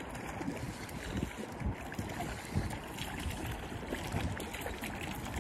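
Hooked brown trout splashing and thrashing at the surface of a creek as it is reeled in, over steady flowing water, with wind rumbling on the microphone.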